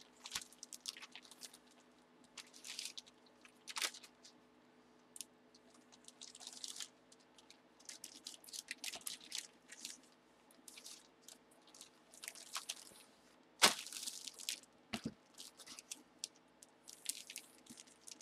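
Clear plastic bag crinkling and rustling in irregular bursts as it is handled and opened, with one sharp snap about three-quarters of the way through. A faint steady electrical hum runs underneath.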